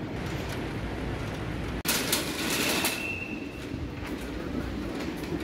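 Airport luggage trolley rolling and rattling over paving and floor tiles. About two seconds in it gets louder for a second, with a brief high squeal.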